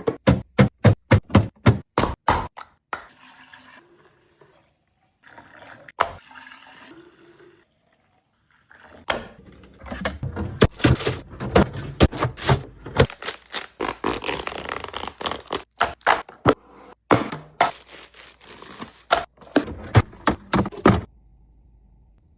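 Fridge restocking: food containers and bottles being set down and shuffled on shelves. First comes a quick run of sharp clicks and thunks, then a quieter stretch, then a long spell of dense knocking and clattering that stops suddenly about a second before the end.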